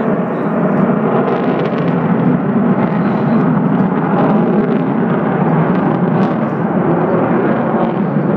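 Sukhoi jet aircraft flying overhead, its engines making a loud, steady, noisy rumble with a faint crackle on top.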